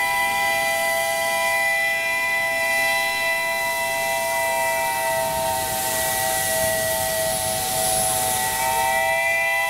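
Steam locomotive's chime whistle sounding one long, steady blast, several tones at once. Its pitch sags slightly in the middle and rises again near the end, with a hiss of steam swelling in the middle.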